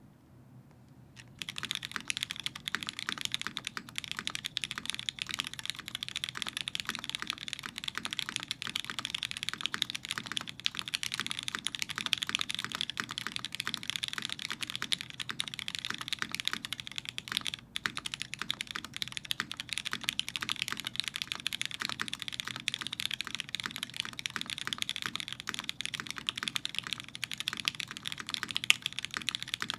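Fast continuous typing on a mechanical keyboard with lubed Cherry MX2A Black linear switches in an aluminum plate, top-mounted, with GMK keycaps: a dense run of key clacks, starting about a second and a half in, with a brief pause a little past halfway.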